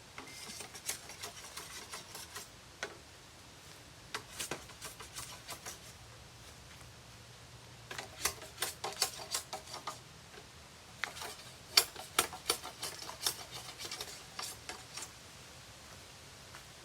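Irregular scraping and clicking in four bursts of a few seconds each, separated by quieter gaps.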